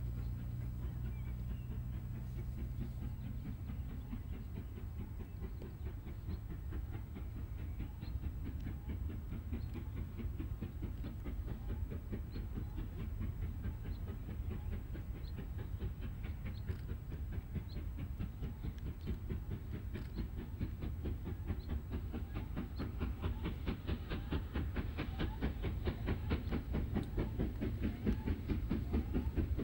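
Steam locomotive hauling a passenger train, its exhaust beating in a rapid, even rhythm over a low rumble. It grows louder near the end as it approaches.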